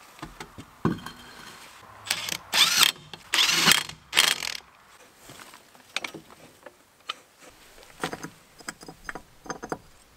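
Ratchet wrench running the wheel bolts onto a van's steel wheel: three loud runs of metallic ratcheting with squeaks between about two and four and a half seconds in. After that come lighter scattered clicks and knocks of the tools.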